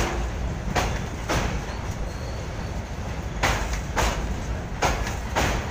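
Freight train of open-top steel wagons rolling slowly past across a bridge: a steady rumble of wheels on rail, with sharp clacks in pairs as each bogie's two axles cross a rail joint. There are three such pairs, one about a second in and two near the end.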